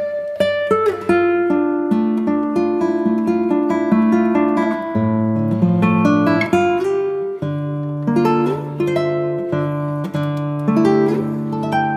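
Background music: acoustic guitar plucking and strumming chords.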